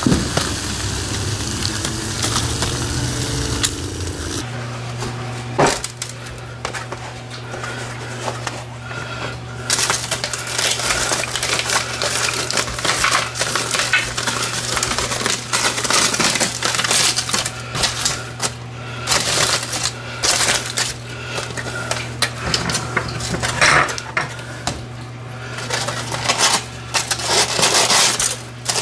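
Aluminum foil crinkling and rustling as a crumpled foil packet of fire-roasted potatoes is handled and pulled open, with scissors cutting through the foil near the end. A steady low hum runs underneath after the first few seconds.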